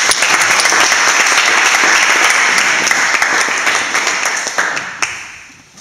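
Applause from a small audience, the performers at the front clapping too. It starts at full strength and dies away near the end.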